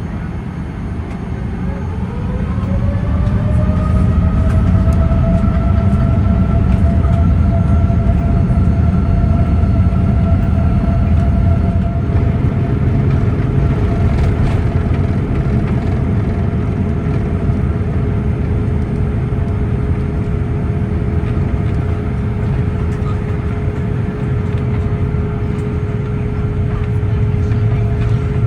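Boeing 787-9 jet engines at takeoff, heard inside the cabin: a whine rises in pitch over the first few seconds as they spool up to takeoff thrust. It then holds steady over a loud, deep rumble through the takeoff roll and climb.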